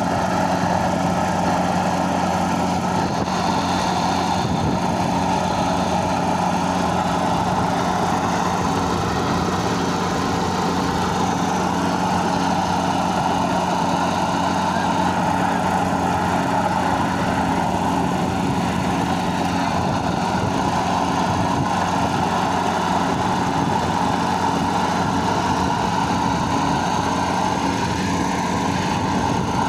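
An engine-driven machine running steadily at an even speed, with a faint tone that pulses on and off at a regular rhythm.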